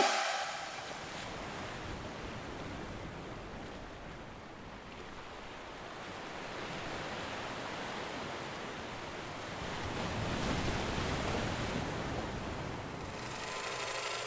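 Ocean surf washing onto the shore, a steady rush that swells a little about ten seconds in.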